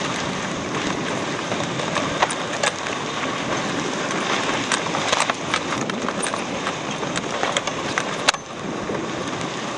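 Dog sled gliding over snow: a steady hiss of the runners with scattered sharp clicks and knocks from the sled, the loudest one near the end.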